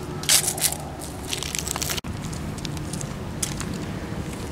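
Footsteps in sneakers crunching dry fallen leaves on a concrete sidewalk, with several loud crunches in the first two seconds. After a sudden break about halfway, fainter scuffs and clicks follow.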